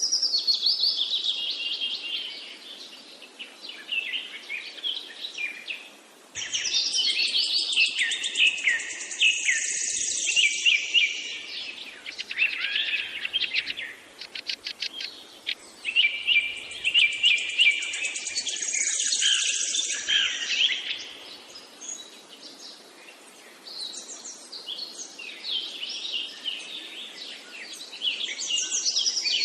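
Birds chirping and singing, many quick overlapping chirps and trills coming in loud stretches with quieter gaps between them.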